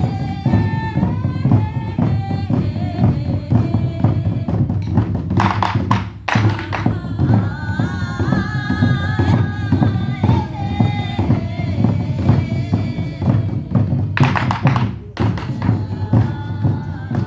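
Korean drum ensemble playing buk drums in a fast, dense beat under a pitched melody, with two brief loud crashes, about five seconds in and near the end.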